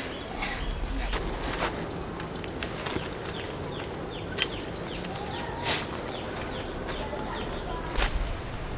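Outdoor ambience: a steady high insect drone, with a run of quick falling bird-like chirps in the middle and a few scattered clicks and rustles.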